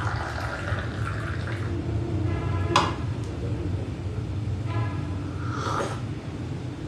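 Brewed coffee poured from a glass V60 server into a small glass cup, a thin trickle of liquid over the first second or two. Just under three seconds in comes a single sharp knock as the glass server is set down.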